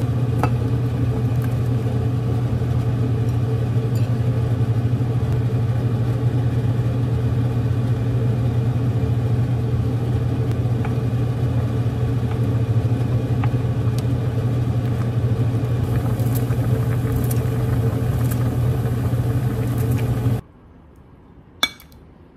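Steady low hum and rumble in the kitchen while a pot of soup boils on an induction cooktop. It cuts off suddenly near the end, and a single light clink of a metal ladle against a ceramic dish follows.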